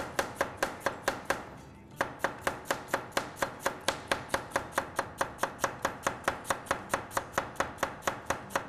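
Knife rapidly shredding red cabbage on a cutting board: quick, even chopping strokes about five a second, with a brief pause about a second and a half in before the strokes resume.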